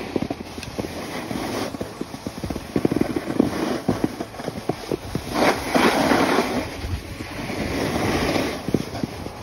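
Snowboard sliding and scraping over packed, groomed snow on a downhill run, with many short crackling scrapes from the edges and louder swells of scraping about halfway through and again near the end. Wind rushes over the phone's microphone throughout.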